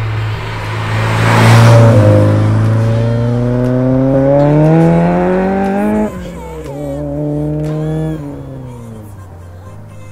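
Acura RSX Type-S's K20 four-cylinder passing close by, then revving hard as it accelerates away, its pitch climbing for several seconds. About six seconds in, the note breaks off suddenly, then a steadier engine note fades out.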